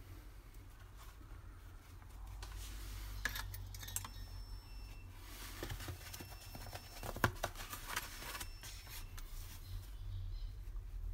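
Handling noise at a workbench: scattered clicks and scraping, busiest in the middle, over a steady low hum.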